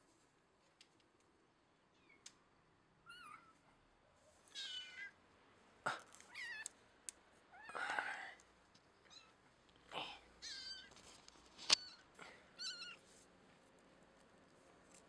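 A young kitten mewing over and over in short, high, wavering cries, with a few sharp clicks among them.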